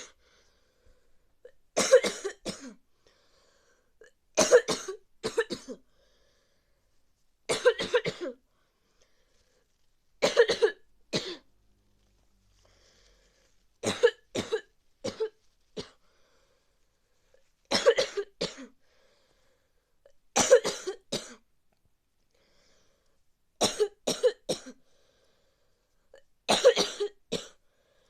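A person coughing with a bad cold: about nine short bouts of two or three coughs each, coming every few seconds with quiet between.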